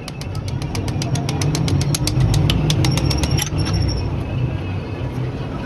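A motor running steadily, with rapid, evenly spaced clicks, about eight a second, that stop about three and a half seconds in.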